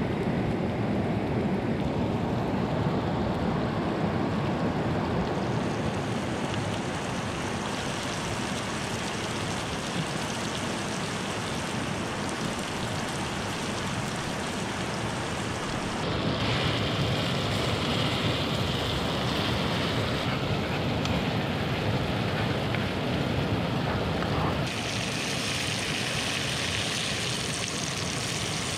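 Rushing water of a hill stream, a steady hiss that changes abruptly in tone twice, about halfway through and near the end.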